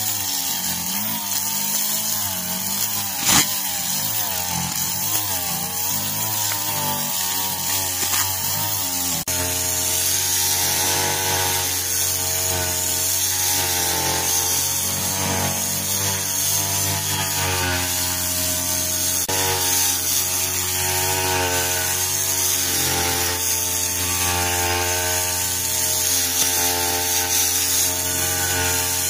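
Backpack brush cutter's small two-stroke engine running at high speed, its pitch wavering up and down as the trimmer head cuts through grass.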